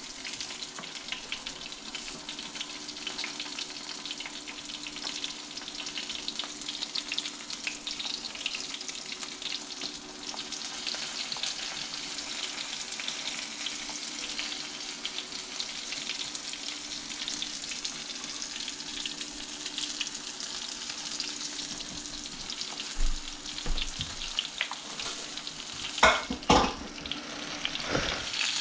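Breaded bluegill pieces deep-frying in hot oil: a steady crackling sizzle. A couple of louder knocks come near the end.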